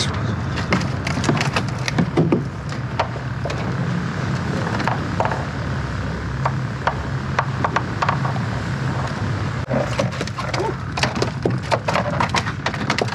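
Scattered knocks and rattles on a small fiberglass skiff's deck as a landed fish and tackle are handled, getting busier near the end, over a steady low hum.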